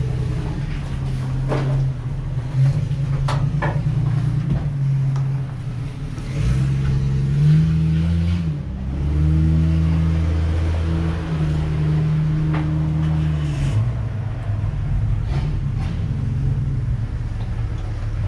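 A motor engine running steadily with a low drone, its pitch briefly rising and falling about eight seconds in. A few sharp knocks in the first few seconds, like steps or handling on metal.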